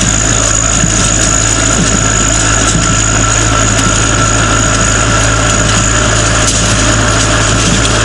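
International Harvester 420 square baler running in the field while picking up hay, behind the tractor that drives it, with the tractor's engine under a steady load. The machinery drone stays even throughout, with a constant high whine over a low hum.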